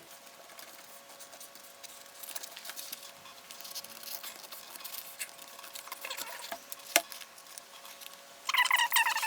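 Scissors cutting clear adhesive contact film: irregular small crackles and snips as the plastic sheet is cut and handled, with a sharp click about 7 s in and a louder scratchy stretch near the end. A faint steady hum runs underneath.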